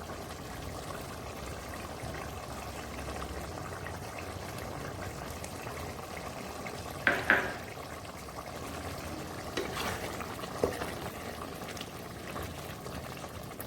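Chicken curry simmering in its liquid in a pan, a steady bubbling hiss. About halfway through and again a few seconds later come short knocks and scrapes of a spoon against the pan as cashew paste is stirred in.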